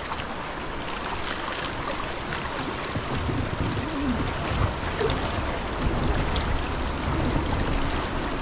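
River water rushing and lapping around an inflatable raft, a steady watery hiss with a low rumble underneath.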